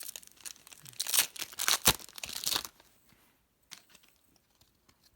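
Trading-card pack wrapper being torn open and crinkled for about two and a half seconds, then a few faint clicks as it goes quiet.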